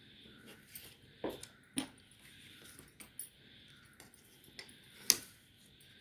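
A few sharp light taps and clicks of craft materials being handled on a table, paper and a plastic ruler among them, the loudest about five seconds in.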